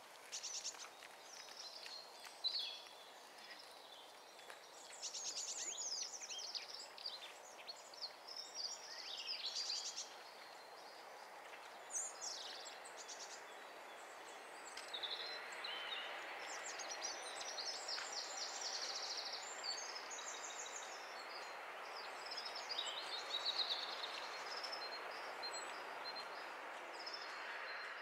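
Small woodland songbirds singing and calling, with high, fast trills and short chirps coming and going, over a steady background hiss that grows louder about halfway through.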